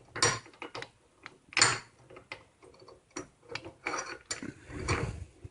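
Irregular metallic clunks, clicks and scrapes of a boat steering cable being handled and clamped in a bench vise, with the loudest knocks about a second and a half in and near the end.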